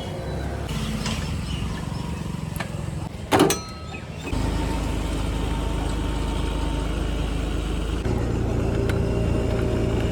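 Vehicle engine running steadily, with one short, sharp, loud sound about three seconds in; about a second later the engine gets louder and stays so, stepping up again near the end.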